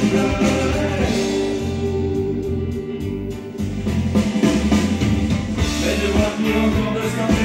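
A rock song with singing and a band, played from a vinyl record on a Sony turntable through a home hi-fi. The band drops back briefly about three seconds in, then the drums pick up again.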